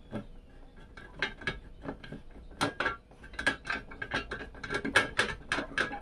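A screw being turned by hand in a hole of a sheet-metal drive cage: a rapid, irregular run of ticking clicks as the thread rasps against the metal edge, with a faint metallic ring.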